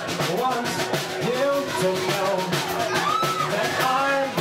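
Live rock band playing a song: drum kit, electric guitar and electric bass, with a pitched melody line bending over the beat.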